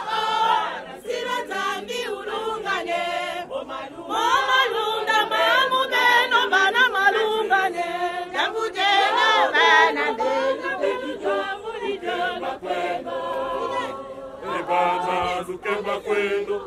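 A group of women singing together, a church hymn sung in chorus while marching.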